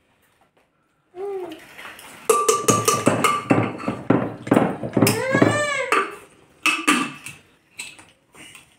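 Plates and cutlery clinking at a meal table, with short knocks, mixed with a person's wordless voice that rises and falls in pitch about five seconds in.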